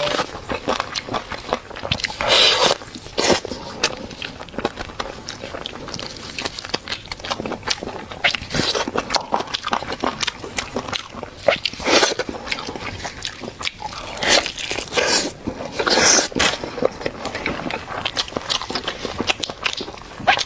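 Close-miked eating: wet chewing and biting into chicken, with many short smacking and crunching clicks and a few longer noisy stretches of chewing.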